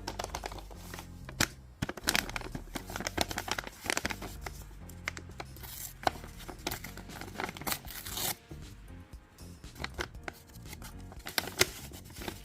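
A handmade paper blind bag being torn open and handled: a quick, irregular run of paper rips and crinkles over soft background music.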